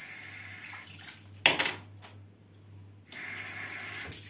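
Kitchen sink tap running as hands are rinsed under it, shut off about a second in. A sudden loud sharp noise follows about a second and a half in. The tap runs again for about a second and stops near the end.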